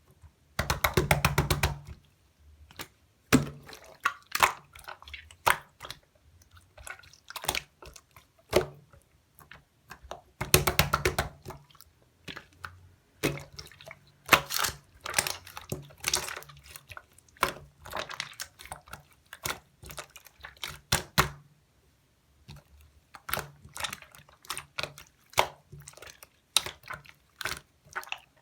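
Slime being squished and pressed by hand: scattered wet, sticky clicks and pops, with two bursts of rapid crackling, about half a second in and about ten seconds in.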